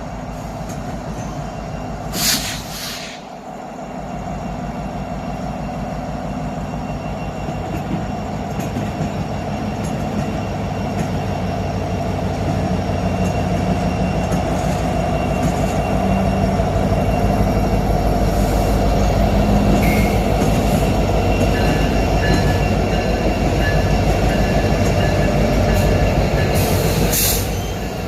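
A train rolling past: a steady rumble of the locomotive and cars that grows louder through the middle, with a faint high wheel squeal. A short rush of noise comes about two seconds in and again near the end.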